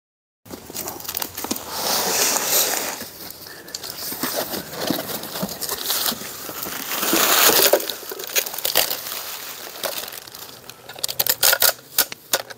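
Bubble wrap and plastic wrapping crinkling and rustling as equipment is pulled out of a cardboard shipping box and unwrapped, with a quick run of sharp crackles and clicks near the end.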